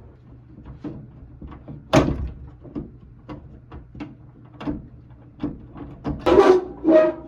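Stuck steel drawer of an old toolbox being yanked and worked loose: a string of metal knocks and rattles, a sharp bang about two seconds in, and louder ringing clanks near the end.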